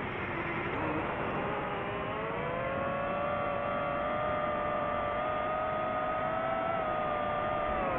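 DJI FPV quadcopter's motors and propellers whining in flight. The pitch dips about a second in, climbs as the motors speed up about two seconds in, holds steady, then drops near the end.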